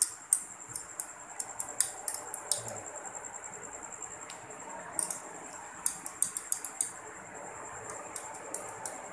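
Sharp irregular clicks in quick clusters from a stopped multi-head computerized embroidery machine's heads, a busy run of them at the start and another about five seconds in, over a faint steady high-pitched electronic whine.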